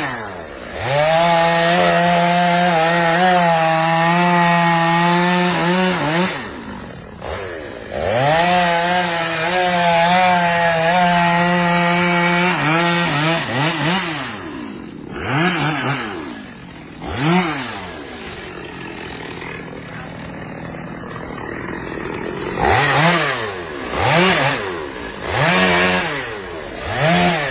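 Two-stroke chainsaw held at high revs for about five seconds, twice, then revved up and down in short blips with lower running between them.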